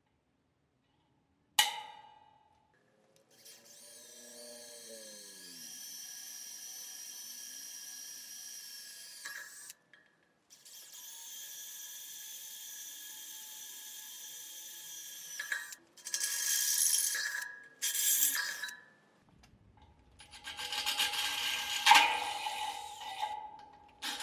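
Cordless drill running in long steady runs with a whine, stopping and starting, then in shorter bursts as the bit grinds into the metal of the air compressor's housing, loudest near the end. A sharp click comes just before the drilling starts.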